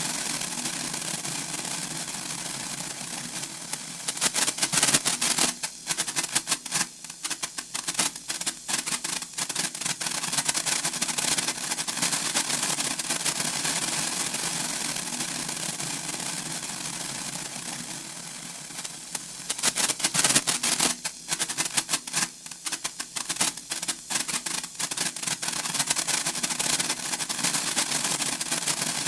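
Senko hanabi (Japanese hand-held sparkler) burning with a steady fizzing crackle. Twice it breaks into a few seconds of rapid, sharp crackling, about four seconds in and again near the twenty-second mark.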